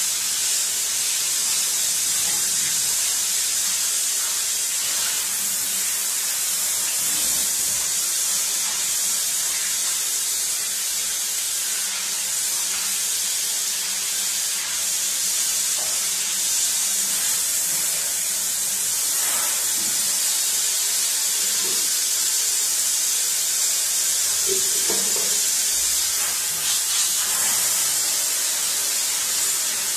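Water from a hand-held sink sprayer hissing steadily onto a print in a stainless-steel sink, as the print is rinsed out.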